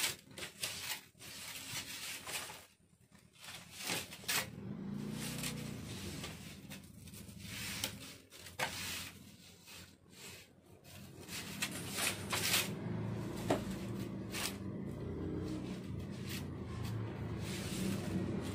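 Fabric rustling as lace and brocade pieces are handled and shifted on a table, with scattered short taps and knocks.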